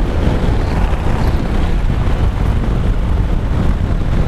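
Harley-Davidson Softail Heritage's V-twin running steadily at road speed under heavy wind rush over the microphone.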